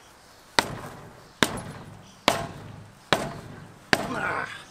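Five evenly spaced metal-on-metal hammer blows at a truck's rear wheel, each with a brief ringing decay, as stubborn lug nuts are knocked loose.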